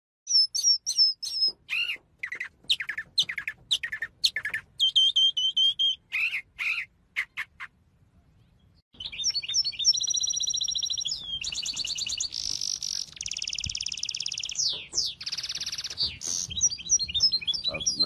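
A mockingbird singing a string of varied short whistled and chirped phrases. After a second of quiet, a small finch sings a long run of rapid trills and twittering warbles.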